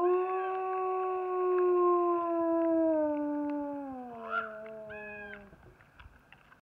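A wolf howling: one long howl that rises sharply at the start, holds a steady pitch, then slides gradually lower and ends about five and a half seconds in. A short, higher call overlaps it near the end.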